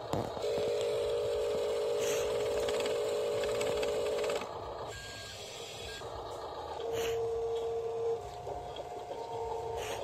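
Small electric tipper motor of a radio-controlled dump truck whining steadily for about four seconds. Near the end it whines again in two shorter runs as the loaded bed is lowered.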